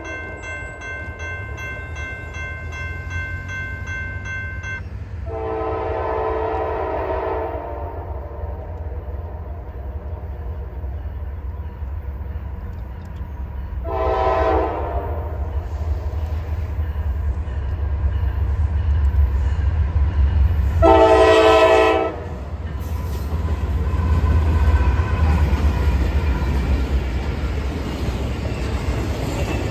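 Freight locomotive's multi-chime air horn sounding for the crossing: a long blast ending about five seconds in, a second long blast, then shorter blasts at about fourteen and twenty-one seconds, the last the loudest, over a low rumble that grows as the train approaches. From about twenty-two seconds a double-stack intermodal train rolls past with steady wheel and rail noise.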